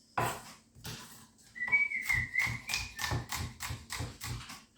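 Kitchen knife slicing through onion onto a cutting board: a couple of separate cuts, then a steady run of about four cuts a second. A faint high whistle sounds briefly over the chopping about halfway through.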